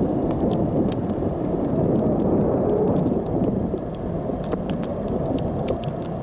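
Wind noise on the camera's microphone, a steady low rumble, with scattered sharp ticks of raindrops striking the camera.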